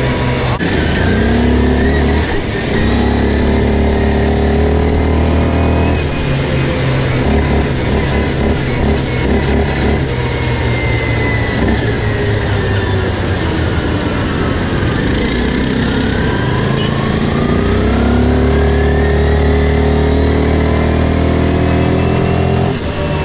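Quad bike engine running under way, its pitch falling and rising again as the throttle is eased off and opened.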